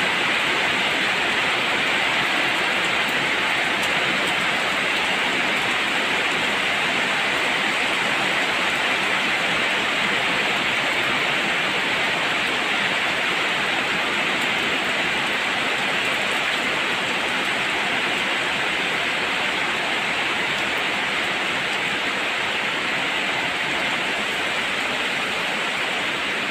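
Heavy monsoon rain pouring down in a steady hiss.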